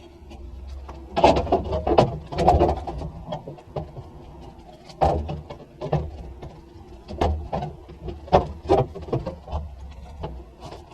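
Irregular knocks and clanks of a sheet-metal floor panel being handled and pushed into place, several in quick succession in the first few seconds and more scattered after, over a steady low hum.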